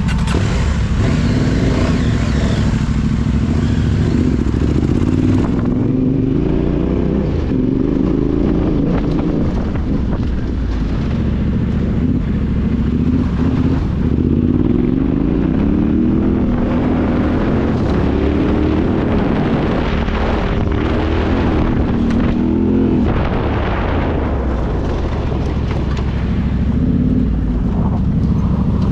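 Yamaha Ténéré 700's parallel-twin engine running under way, its pitch rising and falling with the throttle.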